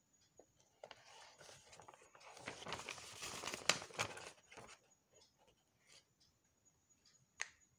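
Scissors cutting through thin tracing paper, a dry crisp rustling and snipping of the paper that is strongest in the middle and dies away about halfway through. A single sharp click near the end.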